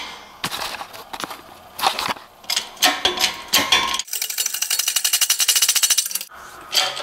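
Metal clinks and knocks as a new tapered roller bearing is pressed onto a differential carrier case in a bottle-jack shop press. About four seconds in comes a run of fast, even metallic ticking lasting about two seconds: the bearing and case being spun under press pressure to make sure the bearing cage turns freely.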